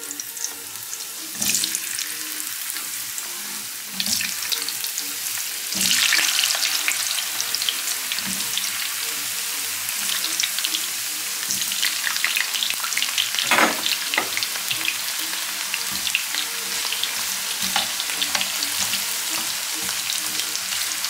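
Potato sticks frying in hot oil in a frying pan, a steady crackling sizzle with several louder surges as more pieces go in and are stirred with a slotted spoon.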